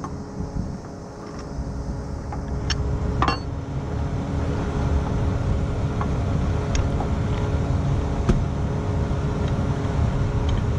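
Heavy truck engine running steadily at idle close by, with a few sharp metallic clinks as steel winch rigging (hook, shackle, cable) is handled; the loudest clink comes late on.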